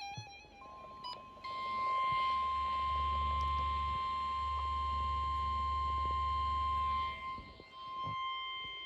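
NOAA Weather Radio warning alarm tone: a single steady 1050 Hz beep that begins about half a second in and holds at one pitch, the signal that a new weather warning follows. For several seconds in the middle a low buzzing hum and hiss lie under it.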